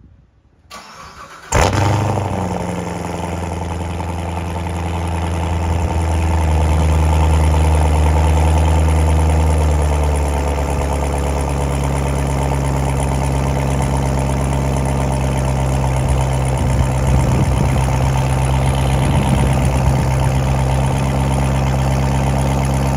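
2017 Corvette Z06's supercharged 6.2-litre LT4 V8 cold-starting through a Corsa double helix X-pipe with the exhaust valves open in track mode: a short crank about a second and a half in, a sudden loud flare, then a loud, steady cold-start high idle that steps down in pitch a few times as it settles.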